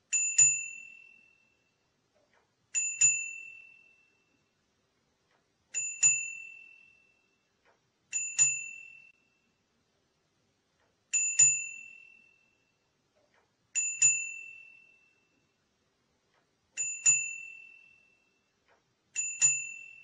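Small black dome bicycle bell rung eight times, each ring a quick double strike, ding-ding, that rings on in a clear high tone and fades over about a second.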